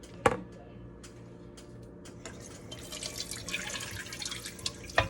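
Kitchen tap water running and dripping, with small clinks, and a knock just after the start and a louder clatter right at the end.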